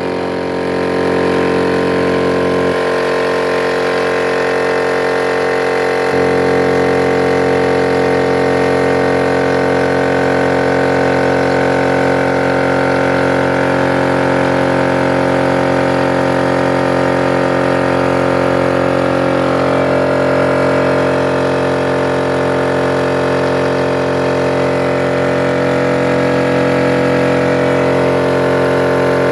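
Multipro DCC-075/10 HS 750-watt oil-lubricated electric piston air compressor running steadily under load, pumping up its tank, with a constant hum and motor drone.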